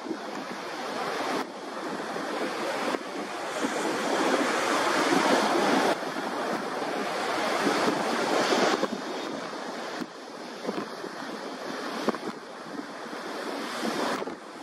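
Learjet 45's twin Honeywell TFE731 turbofans giving a steady jet rush as the aircraft rolls along the runway, loudest in the middle as it draws close, mixed with wind buffeting the microphone. The level jumps abruptly several times.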